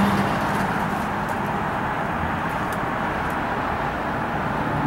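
Steady distant rumble of a city outdoors, an even wash of background noise with no distinct events.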